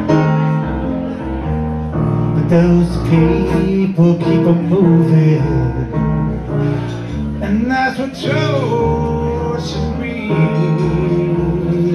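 Blues harmonica solo played into a cupped hand-held microphone, its notes bending and sliding, over piano-style accompaniment on a Nord Stage 3 electric keyboard with a steady walking bass line.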